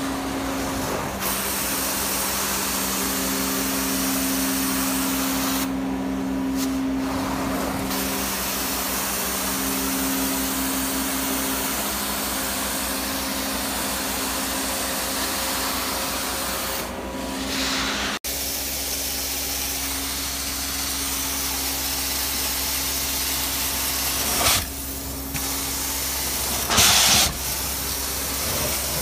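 Truck-mounted carpet steam-cleaning unit running while its extraction wand is drawn over carpet: a steady hiss of water and air being sucked up, over the even drone of the machine. The hiss drops away briefly three times, and a louder rush of air comes near the end.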